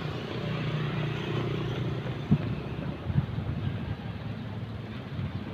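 Road traffic: car and motorcycle engines running steadily. Two short thumps come about a second apart near the middle.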